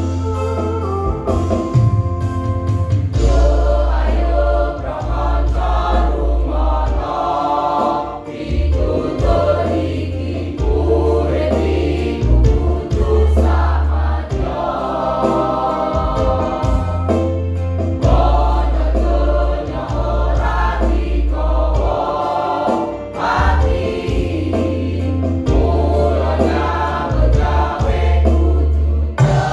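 Mixed choir of women's and men's voices singing together over an electronic keyboard accompaniment with a heavy, steady bass.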